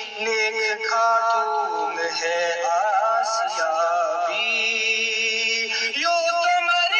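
Background music: a man singing a melody with long, wavering held notes.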